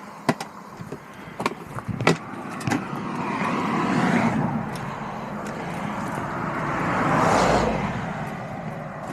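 Road traffic passing close by: two vehicles swell up and fade away, one about four seconds in and a louder one about seven and a half seconds in. In the first three seconds there are a few sharp clicks and knocks.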